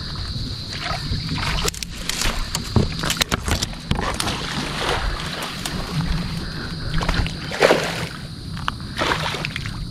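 Hooked barracuda thrashing at the surface of a pond, sloshing and splashing in several bursts. A steady high insect trill runs behind it.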